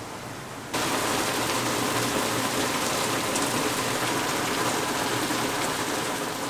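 Heavy rain pouring steadily, suddenly louder about a second in.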